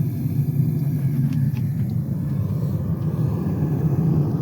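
Melting furnace's burner running steadily with a low rumble, turned up to heat the crucible red-hot for seasoning.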